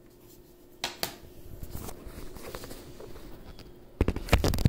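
Handling noise from a hand-held phone: a sharp click about a second in, faint rubbing and rustling, then several loud thumps and knocks near the end as it is moved about.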